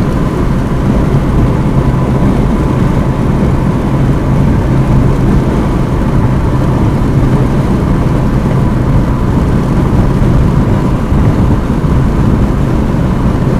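Steady road noise inside a car cruising at highway speed: tyre and engine rumble with a steady low hum.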